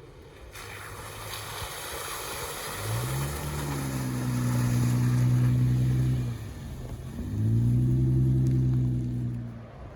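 Jeep Wrangler engine pulling hard twice. Each time it climbs in pitch, holds a steady note for a couple of seconds, then drops away. A rushing noise of tyres and wind runs underneath.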